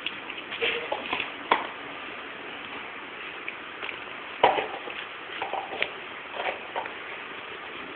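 Scattered short clicks and scuffs as a German Shepherd puppy paws and mouths a small ball on concrete, with two sharper knocks, one about a second and a half in and one about four and a half seconds in, over a steady background hiss.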